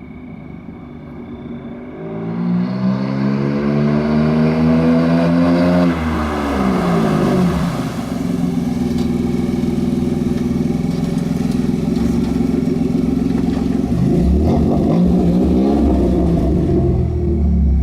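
1993 Dodge Stealth's 3.0 L V6 revving up under acceleration. The revs climb for a few seconds, fall sharply, hold steady, then dip and climb again near the end. The car is struggling to accelerate through a transmission that is slipping and getting stuck in gear.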